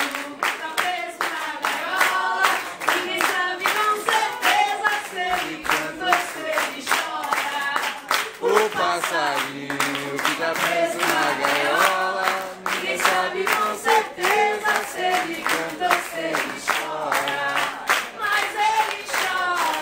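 A woman singing into a microphone, holding and bending long notes, over a steady beat of hand claps.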